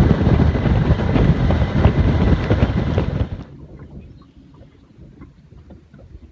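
Fishing boat under way with heavy wind buffeting the microphone, then cutting off abruptly about three seconds in to a much quieter background with faint ticks.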